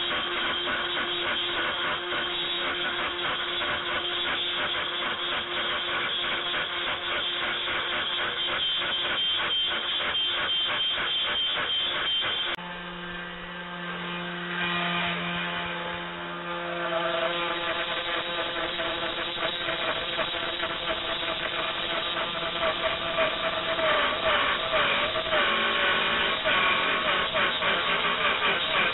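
3018 Pro desktop CNC router milling plywood: the spindle motor running as the bit cuts, with a fast rough rattle from the cut and the stepper-driven axes, while the machine is losing steps and ruining the part. About twelve seconds in the sound changes suddenly to a quieter run with steady tones, and later a wavering tone, as it cuts a motor-mount hole.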